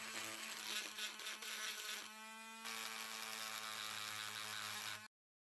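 A small electric rotary tool running with a steady buzzing whine as it works the piece; its tone shifts briefly about two seconds in, and the sound cuts off abruptly near the end.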